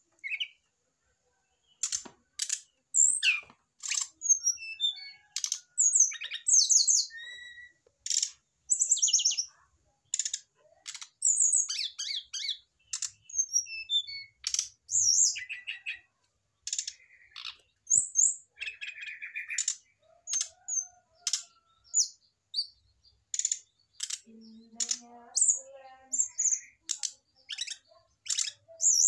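Brown-chested jungle flycatcher calling: a long run of sharp clicks mixed with short, high chirped and trilled phrases, with brief pauses between. These are the calls of a male stirred up by a female placed beside its cage.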